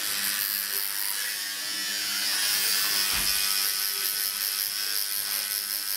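Electric tattoo machine buzzing steadily while the needle works into skin.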